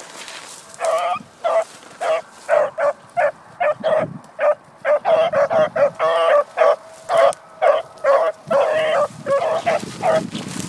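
A dog barking over and over, about two barks a second, starting about a second in, with a few barks drawn out longer than the rest.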